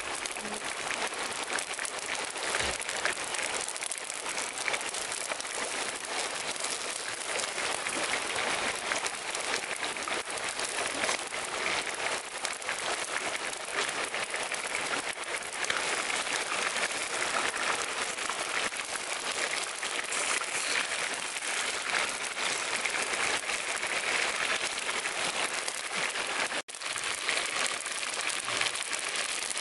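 Chicken pieces frying in oil in a pan over a wood fire: a steady, dense sizzling crackle that breaks off for an instant near the end.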